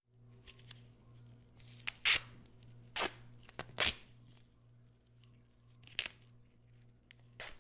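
Adhesive tape being pulled off a roll in about five short, ripping pulls, as it is wound around wrists and ankles.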